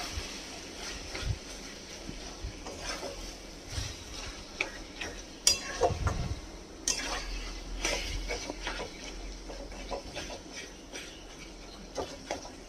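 Metal spatula scraping and knocking against a metal kadai as mutton keema with onions and spices is stirred and sautéed (bhuna), in irregular strokes.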